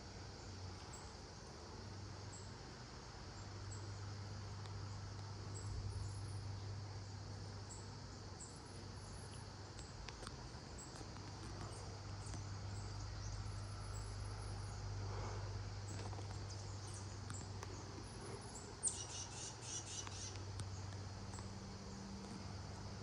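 Insects, likely crickets, chirping steadily over a low, steady hum. Near the end comes a sharp click, then a brief rapid rattling chatter.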